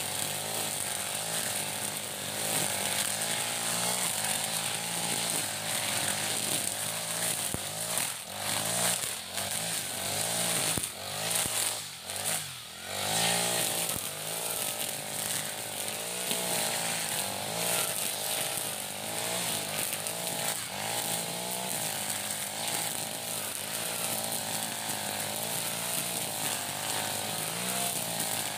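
The 40cc four-stroke engine of an iPower EH40 backpack brush cutter runs at high revs while its nylon trimmer line cuts through grass and weeds. The revs waver as the cutter swings. They drop briefly about twelve seconds in, then climb back.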